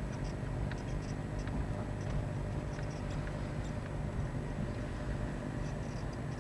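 Steady low rumble of a car driving slowly along a street, heard from inside the cabin, with light scattered ticks.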